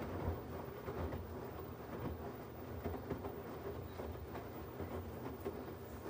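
LG 17 kg front-loading washing machine tumbling a wash: wet clothes and water sloshing and thudding in the turning drum over a low, steady hum.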